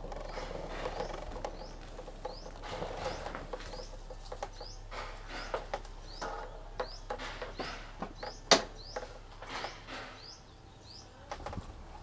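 A small bird repeating a short rising chirp over and over, more than once a second, over scattered sharp clicks and knocks, the loudest about eight and a half seconds in.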